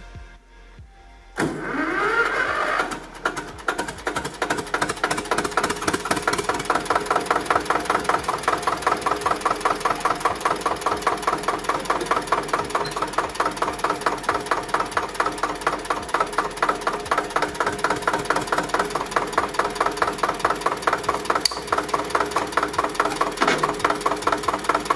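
Zetor 25K tractor's two-cylinder diesel engine starting about a second in, rising briefly in pitch, then idling with a steady, even knocking beat.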